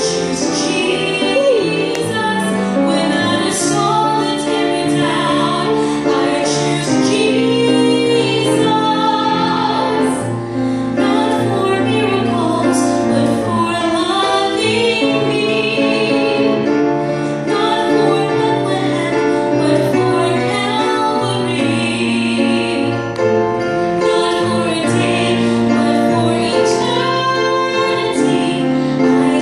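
A woman singing a gospel song into a handheld microphone, over an instrumental accompaniment of steady held chords.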